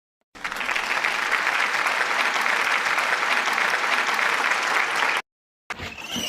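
An audience applauding, a dense clapping sound that starts suddenly and cuts off abruptly after about five seconds, like an applause track edited in between sketches.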